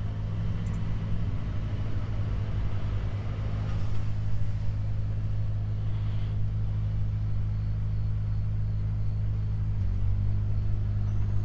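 Truck diesel engine running steadily at low speed, a constant low drone with a slight change in its note near the end.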